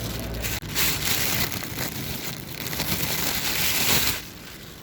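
Rustling and crinkling of a bag and its contents being handled, which stops abruptly about four seconds in.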